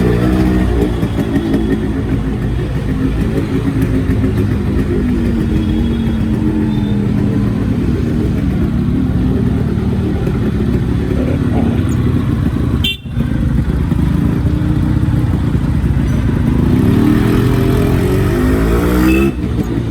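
Yamaha RX-series two-stroke single-cylinder motorcycle engine running and being revved, its pitch rising and falling. The sound cuts out for a moment about two-thirds of the way through, and the revs climb again near the end.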